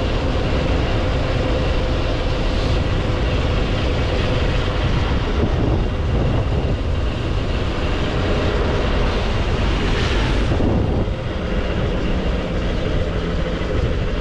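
Motorcycle riding at speed: steady wind rush buffeting the rider's microphone, with the bike's engine running underneath. A brief louder swell of rushing noise comes about ten seconds in.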